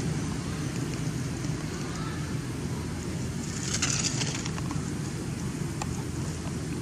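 Steady low outdoor rumble, with a brief dry rustle of grass about four seconds in as a long-tailed macaque forages and plucks at the grass.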